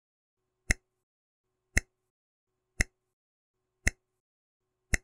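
Countdown timer sound effect: five sharp ticks, about one a second.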